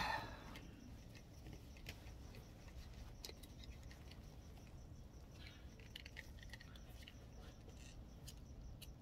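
Faint, scattered small clicks and ticks of hands handling a printhead, over low room tone; a louder noise just before dies away in the first half second.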